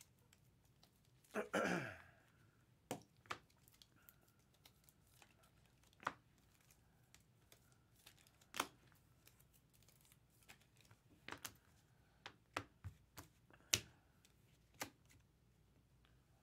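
Trading cards and clear plastic card sleeves being handled: a crinkly rip of plastic about a second and a half in, the loudest sound, then about a dozen sharp separate clicks and taps as cards are set down and squared on the table.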